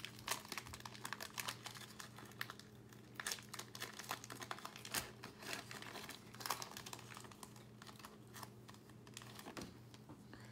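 Foil wrapper of a basketball trading-card pack crinkling and tearing as it is opened by hand, in irregular crackles.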